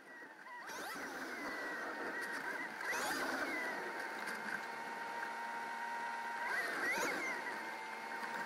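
Cabin sound of a 1998 Chevrolet Tahoe with a supercharged LS9 V8, driving slowly in traffic. It fades in over the first second, then runs fairly steady.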